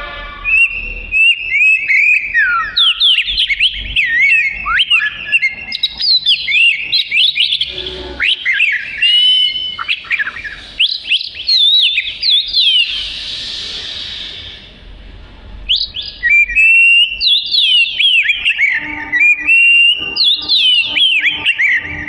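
Oriental magpie-robin singing: a fast, unbroken run of varied whistled phrases sweeping up and down, with a harsh raspy note about two-thirds of the way through.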